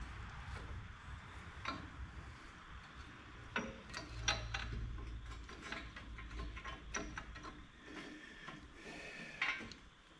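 Scattered light metallic clicks and taps from hand work at the exhaust manifold of a Minneapolis-Moline G900 tractor engine, as fasteners are fiddled into place.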